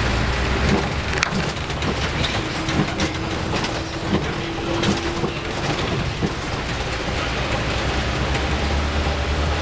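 Road noise of a vehicle driving on a wet street: tyre hiss and a low engine rumble, with scattered clicks and rattles. The rumble grows a little stronger near the end.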